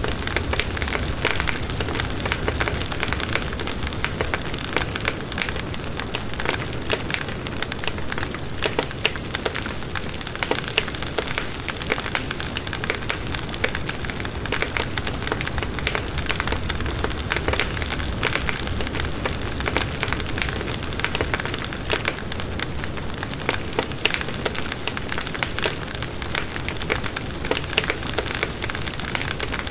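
Wood bonfire burning steadily: a constant crackle of many small snaps over a low rumble of the flames.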